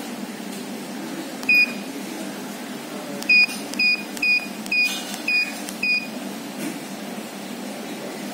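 Keypad beeps from a Palmtec handheld billing machine as keys are pressed to enter an operator password. There is one short, high-pitched beep, then six more evenly spaced about half a second apart.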